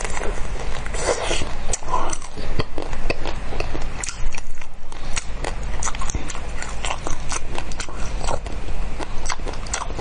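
Close-miked biting and chewing of a frozen pink ball-shaped treat: many sharp crunching clicks and crackles from teeth and mouth.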